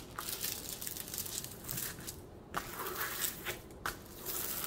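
Clear plastic cover film on a diamond-painting canvas crinkling and rustling as it is pressed and smoothed flat with a metal ruler, in irregular strokes with a short pause about two seconds in.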